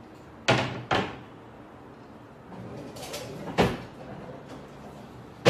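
Kitchen cupboard doors knocking shut: two sharp knocks about half a second apart near the start, another a little past halfway, and the loudest one at the very end.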